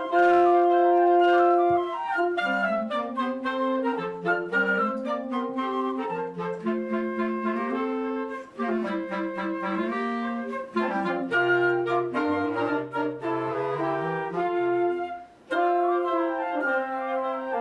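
A military concert band's wind ensemble playing a Christmas piece: several sustained wind parts moving together over a lower line. There is a brief break about 15 seconds in, and then the playing resumes.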